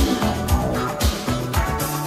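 1980s pop chart song played off a radio broadcast, with a steady drum beat about twice a second under bass and guitar, as heard on an off-air chrome cassette recording.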